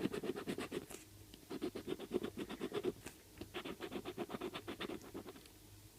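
Scratching the coating off a scratchcard: rapid back-and-forth strokes, about ten a second, in three quick runs with short pauses between.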